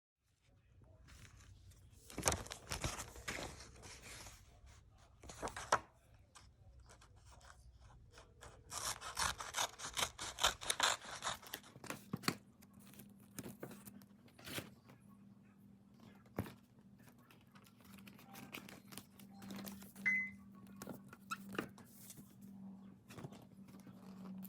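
Rustling, scraping and light tapping from hands working with craft materials, with short clicks throughout and a few louder bursts of rustling. A faint low hum comes in about halfway through.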